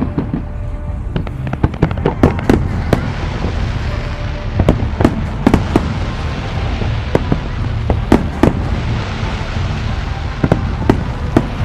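Aerial fireworks bursting: many sharp bangs at irregular intervals, some in quick clusters, over a constant low rumble.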